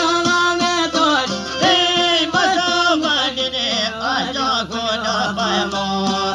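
Live folk music: a violin plays an ornamented melody with slides, over plucked long-necked and round-bodied lutes.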